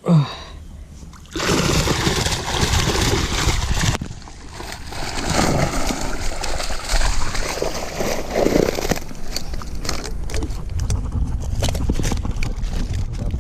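A short loud knock, then water splashing and sloshing from live tilapia thrashing in water as the catch is handled. The splashing is strongest for the first several seconds and gives way to scattered drips and crackles.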